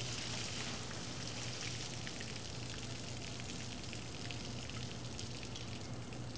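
Water-based hydraulic operating fluid draining from the seam of a Cameron ram BOP bonnet as it is pried back from the intermediate flange, pouring in thin streams and splattering steadily, with a low steady hum underneath.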